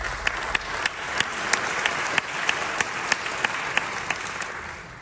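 Concert audience applauding, with one pair of hands clapping close by in a steady beat of about three claps a second. The applause thins out near the end.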